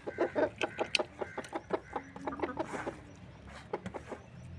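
Chickens clucking: a quick run of short calls in the first few seconds, thinning out toward the end.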